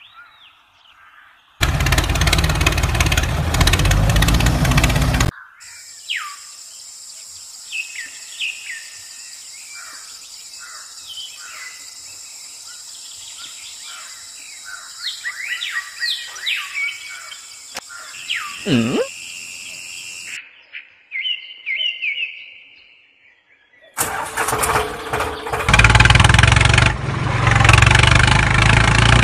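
A small DC motor whirs for a few seconds as it is wired to a battery. Then birds chirp in short gliding calls over a steady high hiss, and near the end a tractor engine suddenly comes in and runs loudly.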